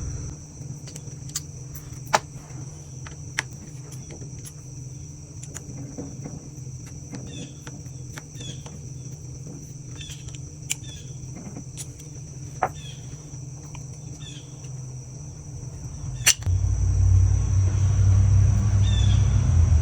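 Scattered light clicks and clinks of hand tools and small engine parts being handled, over a steady high thin tone. About 16 seconds in a loud low rumble starts and carries on.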